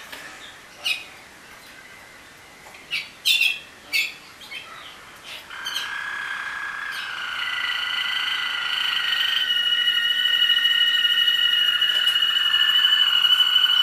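Waterslager (Malinois) song canaries singing: a few short chirps in the first few seconds, then from about halfway long, steady held notes, two or more overlapping at once, getting louder.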